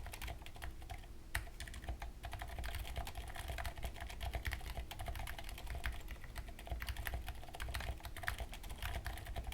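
Fast continuous typing on a Clueboard 1800 mechanical keyboard fitted with stock 78 g Aliaz switches and SA-profile keycaps: a quick, uneven stream of keystroke clicks.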